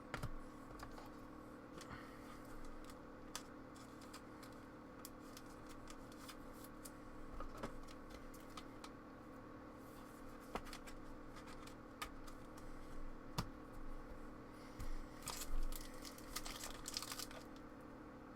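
Trading cards being handled, with soft clicks and rustles, and a foil pack wrapper crinkling and tearing in a louder cluster near the end. A faint steady hum lies under it.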